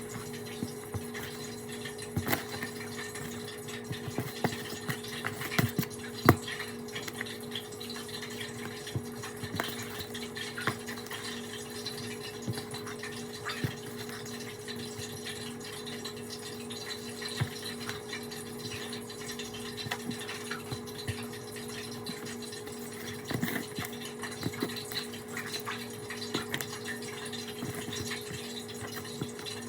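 Chicken frying in hot oil: a steady sizzle with scattered pops and crackles, over a steady low hum.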